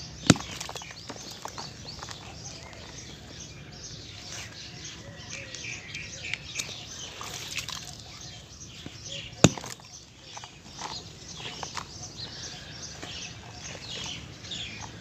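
Two sharp smashing knocks about nine seconds apart, the first right at the start, from soft cement chunks being broken; between them, small birds chirp continuously.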